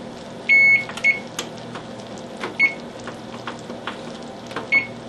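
Electric oven's touch control panel beeping as its keypad buttons are pressed to set broil for about 3 minutes: one longer beep about half a second in, then three short beeps spread over the next few seconds, with a steady low hum underneath.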